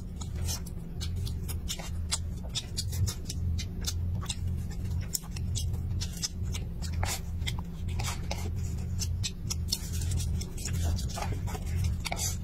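Close-up eating sounds: wooden chopsticks clicking and scraping against a plastic cup as rice is shoveled into the mouth, with wet chewing and lip smacks in quick, irregular clicks. A steady low hum runs underneath.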